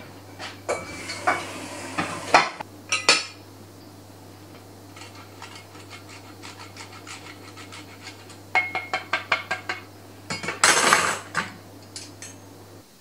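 Cheese grated by hand on a flat metal grater over a plate of pasta: rasping scrapes and sharp metallic clinks of the grater against the plate, with a quick run of about ten taps a little past halfway and a louder scrape near the end. A steady low electrical hum underneath stops just before the end.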